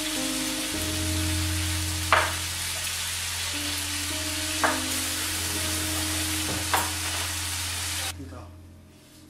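Marinated chicken tikka pieces sizzling as they fry in a pan, stirred with a spatula, with three sharp taps of the spatula on the pan about two seconds apart. The sizzle drops away about eight seconds in.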